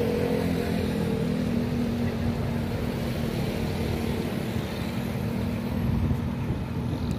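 Road traffic: motorcycles and a car passing on a city street, their engines making a steady rumble with a faint engine hum.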